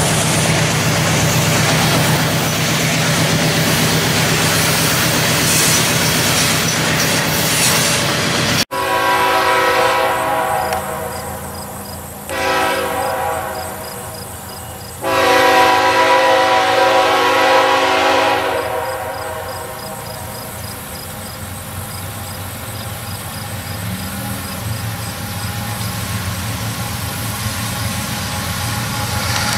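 A train running by, then a diesel locomotive's air horn blowing three long blasts lasting about ten seconds in all, after which the train keeps rolling past.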